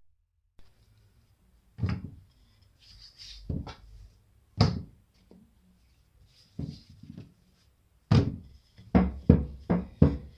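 A run of dull thuds and knocks from risen dough being handled and worked on a kitchen counter: a few scattered thumps at first, then quicker, about three a second, near the end.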